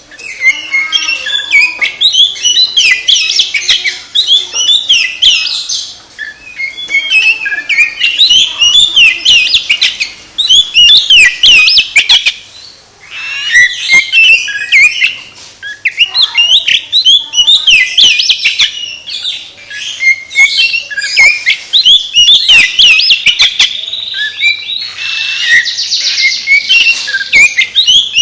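Oriental magpie-robin (kacer) singing loudly in long, varied runs of whistles and chatter, with sharp clicks mixed in and brief pauses every few seconds.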